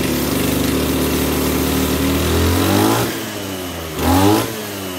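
Maruyama AC32SA 32cc two-stroke brush cutter engine running at a steady high speed with a sharp, crisp note. It drops back to idle about three seconds in, then is blipped once, rising and falling in pitch.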